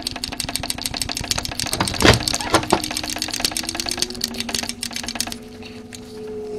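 Ratchet wrench clicking rapidly as the 13 mm exhaust manifold bolts are run out, with a sharp knock about two seconds in; the clicking thins out after about five seconds. A steady low hum runs underneath.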